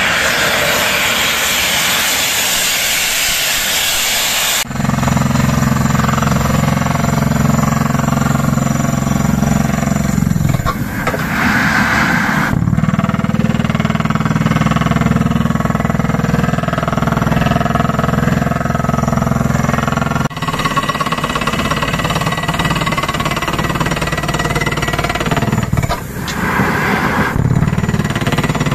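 Borehole drilling rig running, with a loud hiss of air blowing dust and rock cuttings up out of the hole. The hiss dominates for the first few seconds, then a low steady engine drone takes over under it, and the sound changes abruptly a few times.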